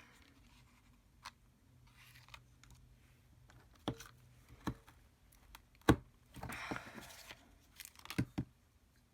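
Paper crafting at work: card stock and small craft tools being handled, a few scattered clicks and taps with short rustles of paper, the loudest a sharp snap about six seconds in.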